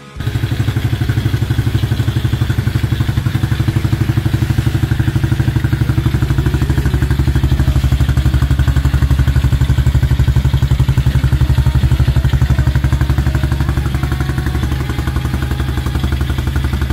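Small 125cc four-stroke ATV engine idling steadily, with an even, rapid pulse.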